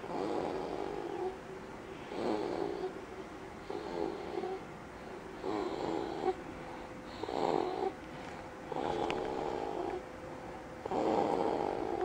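A sleeping baby snoring, one snore about every one and a half to two seconds.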